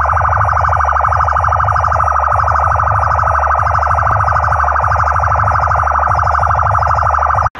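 Loud electronic music from a DJ sound-box rig of horn speakers and bass cabinets. A rapidly pulsing electronic tone plays over a heavy, rhythmic bass beat, and everything cuts off suddenly near the end.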